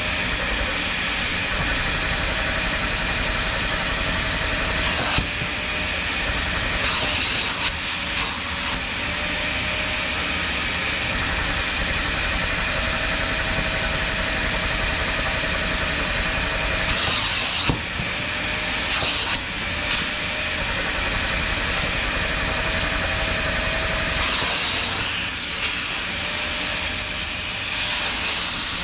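A steady machine hum and hiss with a faint held tone, broken by several loud bursts of hissing.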